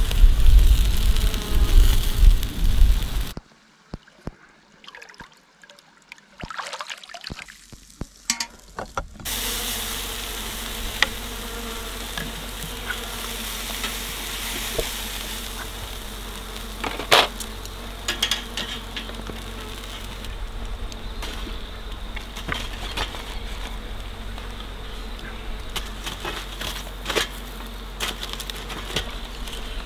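Open wood-fire grill with steak cooking: a steady sizzle-and-buzz haze with scattered crackles and clicks of metal tongs, and one sharper clack a little past halfway. Near the start there is a low wind rumble on the microphone, followed by a few seconds of near quiet.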